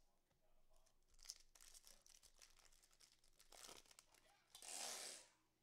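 Faint tearing and crinkling of a trading-card pack wrapper as it is opened, with scattered small crackles and a louder rustle of about half a second near the end.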